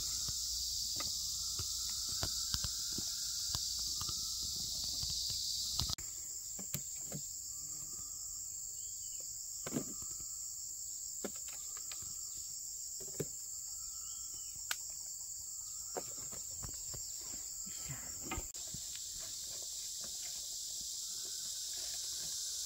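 Steady high-pitched chorus of forest insects, with scattered sharp knocks and taps over it.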